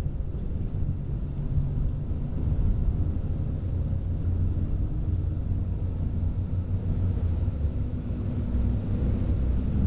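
Thunderstorm: a low, continuous rumble of rolling thunder over rain falling, swelling a little about three seconds in.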